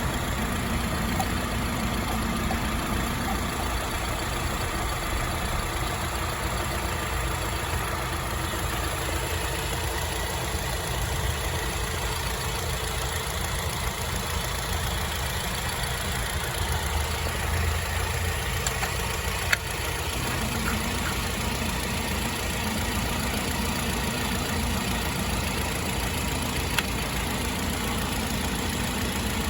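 Refrigerant vacuum pump running steadily, evacuating the car's R-1234yf A/C system before recharge. Its tone shifts slightly about two-thirds of the way in.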